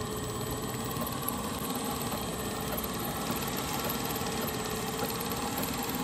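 Belt-driven centrifugal irrigation pump set running steadily, a constant machine hum with no changes in speed.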